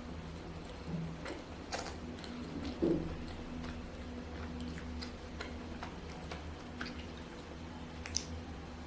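Close-up eating sounds: soft chewing with scattered small mouth and food clicks at irregular intervals, a soft thump about three seconds in, over a steady low hum.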